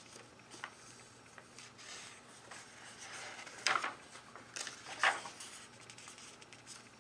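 A page of a paper instruction booklet being turned by hand: soft paper rustling, with two louder swishes about three and a half and five seconds in as the sheet flips over.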